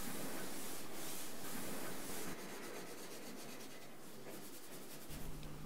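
Pen and then pencil scratching across paper while drawing. There is a steady scratchy hiss at first, then quieter, finer rapid scratching from about two seconds in.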